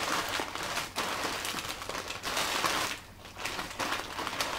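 Thin plastic carrier bag rustling and crinkling as hands rummage through it, with a short lull about three seconds in.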